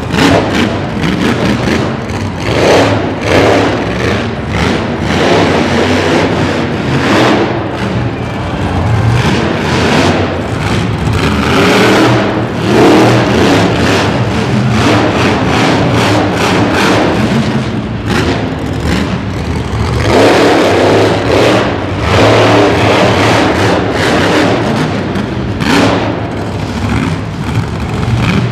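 Monster Mutt Rottweiler monster truck's supercharged V8 engine revving hard in repeated surges, rising and falling in pitch as the throttle is worked.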